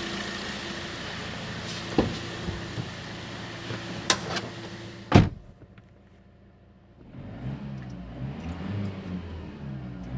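Turbocharged car engine running, with a few knocks and a loud thud about five seconds in, likely a door shutting; after a short quiet spell the engine is heard muffled and being revved. None of the abnormal turbo noise is present now that the wastegate vacuum actuator works again.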